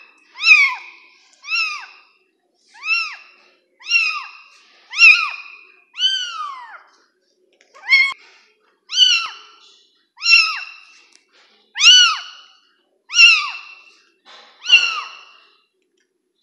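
Young kitten meowing over and over, about a dozen short high calls at roughly one a second, each rising and then falling in pitch.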